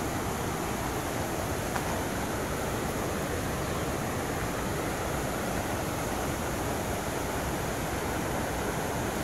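Rain-swollen mountain stream rushing over rocks: a steady, unbroken rush of water.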